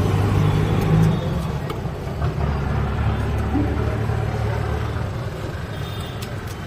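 Street traffic: a motor vehicle's engine running close by, a steady low rumble that eases slightly in the later seconds.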